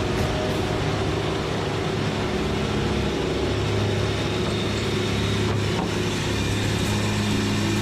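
A heavy engine running steadily, with an even, unchanging hum.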